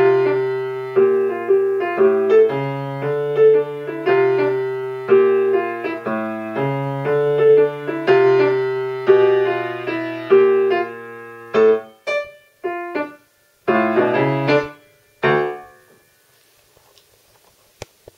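Grand piano playing an easy swing-style jazz piece: a steady repeating bass and chords, then a few short detached chords and a final chord that rings and dies away about two-thirds of the way through. A faint click near the end.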